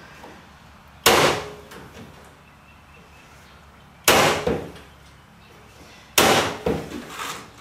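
Corded electric staple gun firing staples through chicken wire into a wooden frame: three sharp shots, about a second in, about four seconds in and about six seconds in, the last followed by a couple of softer knocks.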